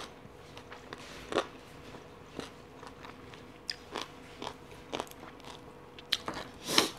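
A person chewing a mouthful of crunchy papaya salad, miked up close: separate crisp crunches about once a second, the loudest near the end.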